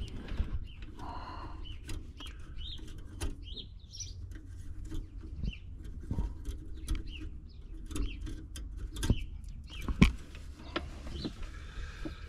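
Scattered clicks and light knocks from hands handling tractor wiring and a coiled copper oil-pressure gauge line, the sharpest about ten seconds in. Small birds chirp in the background.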